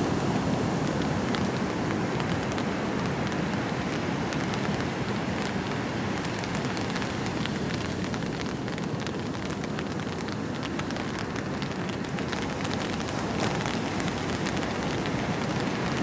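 Steady roar of breaking surf and rushing whitewater, with a fine crackling fizz of foam running through it.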